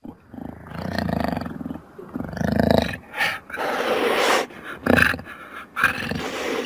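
Jaguar growling and snarling in a run of short calls, some low and deep, with a harsher, hissing snarl about four seconds in.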